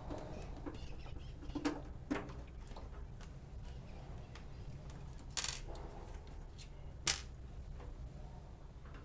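Scattered clicks and taps of a Phillips screwdriver and small screws as a range hood's casing is taken apart, with a slightly longer scrape about halfway through and a sharp tap soon after, over a steady low hum.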